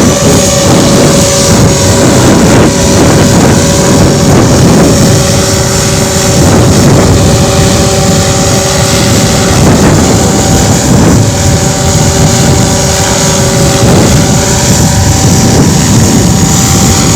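Heavy wind buffeting on the microphone over the steady whine of a radio-controlled scale helicopter in flight.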